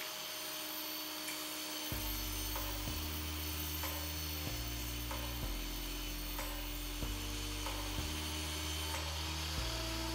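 Benchtop table saw running and cutting a white PVC sheet: a steady sawing hiss.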